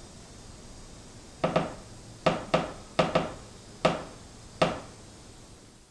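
Wooden beam creaking in a series of short, sharp creaks, about seven, some in quick pairs, each dying away quickly.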